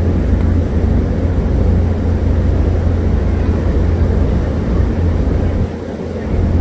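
Tour boat underway: a steady low rumble of the engine and wind on the microphone, easing briefly near the end.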